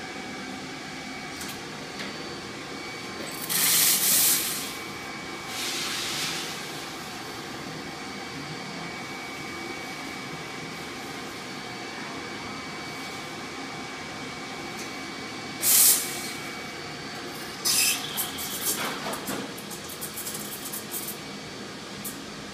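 Espresso machine in use: short, loud blasts of steam hiss, about four seconds in, again near six seconds and near sixteen seconds, over a steady machine hum. Near the end comes a longer spell of hissing broken by small clatters.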